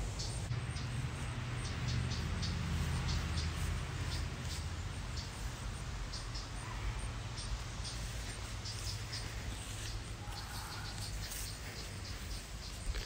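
Outdoor ambience: short high chirps repeating, typical of insects, over a low steady rumble.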